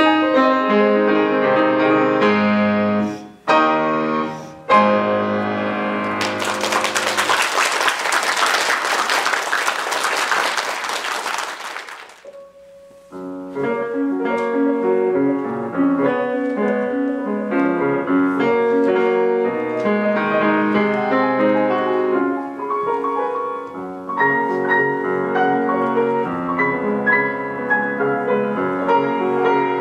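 Solo piano playing. About six seconds in, audience applause takes over for some six seconds; after a brief pause the piano starts again.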